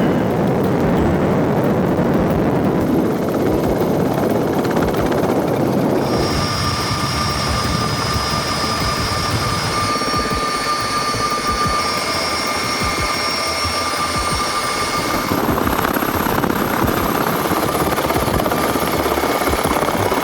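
CH-47 Chinook tandem-rotor twin-turbine helicopter running close by: a dense, steady rotor and engine noise. About six seconds in, high steady turbine whines come in over it.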